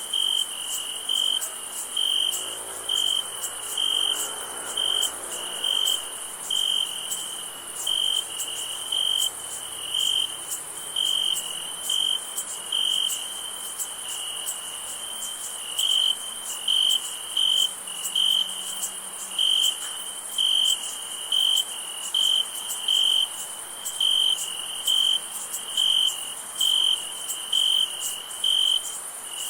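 Night insects: a cricket chirping in a steady pulse about once a second over a continuous high-pitched insect trill.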